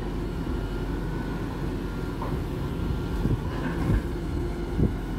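Heavy diesel grapple truck running steadily while its knuckle-boom grapple works a pile of logs, with a few dull knocks from about three seconds in, the last near the end.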